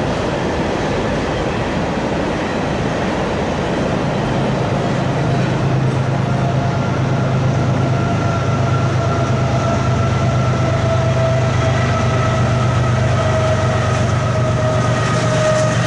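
Double-stack intermodal freight cars rolling past, a steady rumble of steel wheels on rail. From about four seconds in a low hum grows stronger, and a faint steady whine joins it shortly after.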